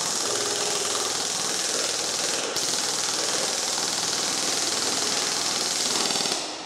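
Echo 1 Robinson Armament polymer XCR-C airsoft electric gun firing on full auto from an 11.1 V LiPo battery: a continuous rapid rattle of the gearbox cycling. There is a momentary break about two and a half seconds in, and the firing stops near the end.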